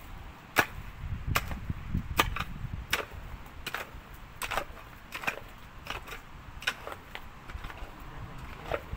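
Hand digging tool striking stony soil over and over, a sharp clack with each blow, a little more than one blow a second.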